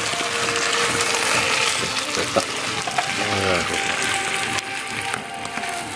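Beans and meat frying in a pan on a stove top, a steady hissing sizzle.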